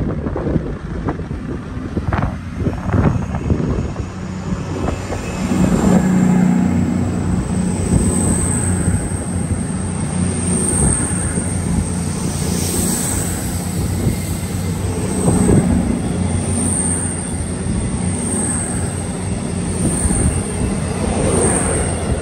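Voyager diesel multiple unit drawing into the platform and standing with its underfloor diesel engines running, a steady low engine hum over the rumble of the train.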